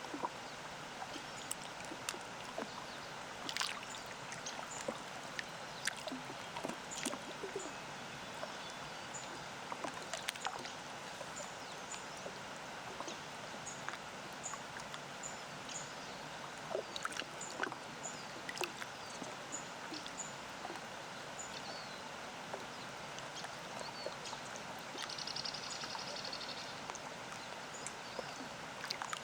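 Small wavelets lapping against the lake shore in irregular little splashes, over a steady rush of a distant waterfall. A bird repeats short high chirps about once a second through the middle, and a brief buzzy trill sounds near the end.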